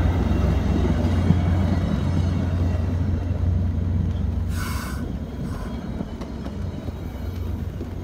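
VIA Rail LRC passenger coaches rolling past on the rails, a steady low rumble that slowly fades as the last car goes by. A short hiss cuts in about halfway through.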